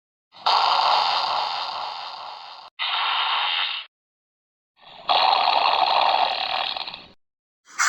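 A run of separate noisy sound-effect clips, each starting and stopping abruptly with dead silence between. The first and longest ones fade over about two seconds; a shorter one sits between them, and another begins near the end.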